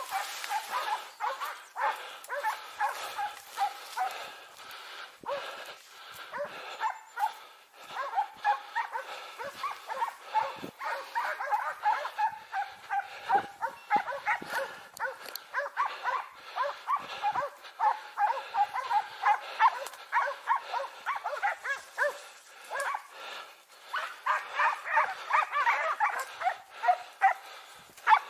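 Hunting dogs barking over and over, several voices overlapping without a break, the barking growing louder near the end.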